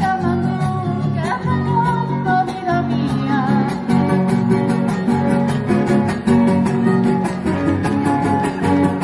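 Son huasteco trio playing a huapango: guitars strummed in a steady, driving rhythm under a wavering violin melody.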